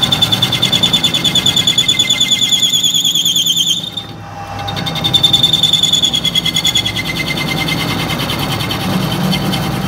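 Metal lathe turning a metal shaft end, the cutting tool giving a loud, high-pitched, rapidly pulsing squeal over the low hum of the machine. The squeal breaks off about four seconds in and comes back a moment later, fading toward the end.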